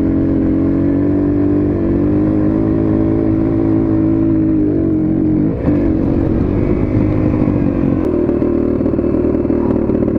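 Dirt bike engine running at a steady speed under way. About five and a half seconds in, the engine note dips briefly and picks up again, then runs on with a rougher, more uneven sound.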